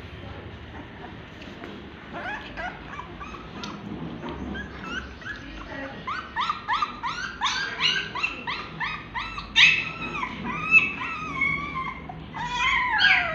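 Young German Shepherd puppy crying in short, high squeals. They are faint at first, then come quickly and loudly at about three a second, and end in a longer whine that falls in pitch.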